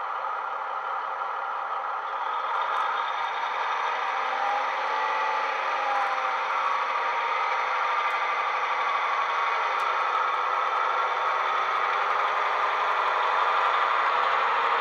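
DCC sound decoder in a Bachmann Class 150 Sprinter model playing its recorded Class 150 diesel engine sound through the model's speaker as the train runs, the sound growing steadily louder from about two seconds in.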